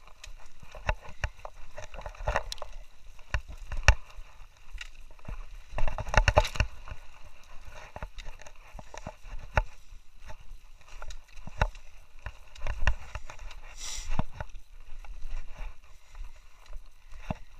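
Irregular footsteps on a rocky, brushy trail: crunches and knocks of feet on loose stones, with brief scrapes of brush a couple of times.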